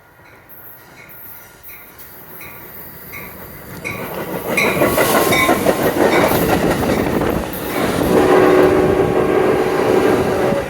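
Metrolink passenger train approaching, its rumble and wheel noise growing steadily louder over the first five seconds, with a bell dinging at an even pace. From about eight seconds in the locomotive's horn sounds a held multi-note chord.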